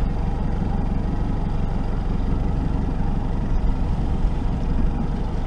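Outboard motor running steadily at trolling speed, a low even drone.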